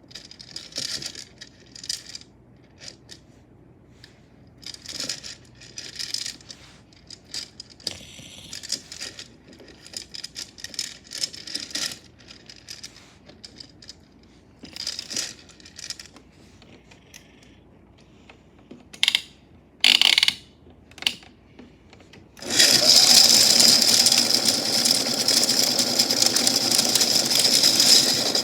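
Small metal chains clinking and rattling in scattered bursts, then about three quarters of the way through a toy washing machine's small motor switches on and runs steadily and loudly, the chains rattling inside its drum.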